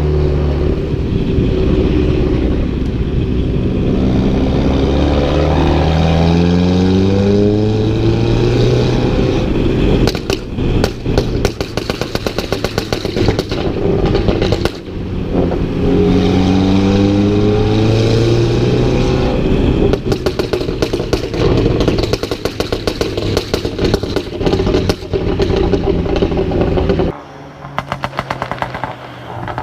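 Seat Altea Freetrack engine and eTuners-tuned exhaust revving up twice, the pitch climbing for several seconds each time. Each rise is followed by a long run of exhaust crackles and pops on the overrun, which die down to lighter crackling near the end.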